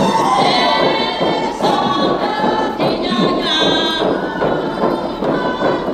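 Many men's voices chanting and hollering together: the work chant of a Konyak Naga troupe hauling a log drum.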